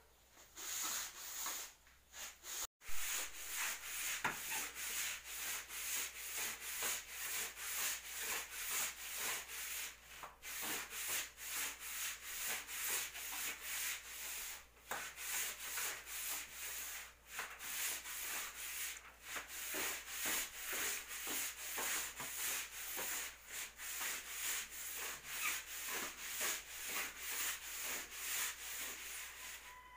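Coconut-husk floor scrubber (bunot) pushed back and forth across the floor by foot: rhythmic scraping strokes, about two a second.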